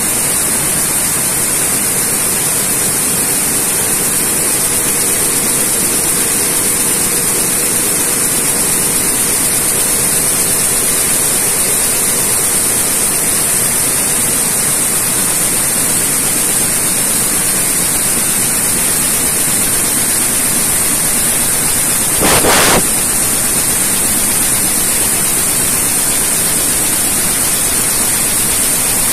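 Tsudakoma weaving loom running at full speed: a loud, steady mechanical noise with a strong high hiss. About three-quarters of the way in there is one brief, louder burst of noise.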